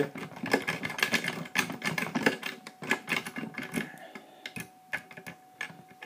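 Rapid metallic clicking and scraping of a Sparrow worm rake worked in and out of a five-pin tumbler cylinder lock, the pins clicking as they are raked. The clicks come thick and fast for the first couple of seconds, then thin out to scattered clicks.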